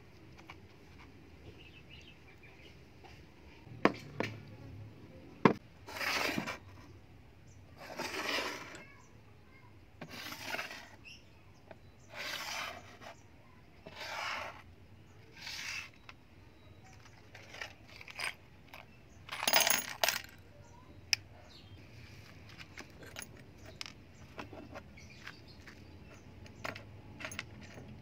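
Stainless-steel knife parts clinking and rattling as they are set down and handled on a table: two sharp clicks, then a run of short metallic rattles about every two seconds, then small light clicks of screws and small parts.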